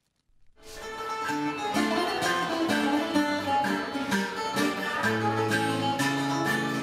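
Bouzouki-family Greek lute being picked, a quick run of plucked melody notes that starts about half a second in.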